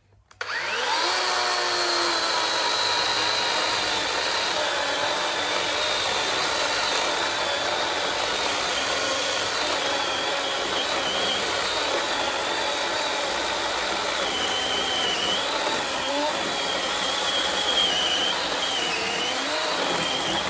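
DeWalt DCM565 18V brushless cordless chainsaw spinning up about half a second in, then cutting through a log with a steady high whine. The whine dips in pitch a few times in the second half as the chain bites under load.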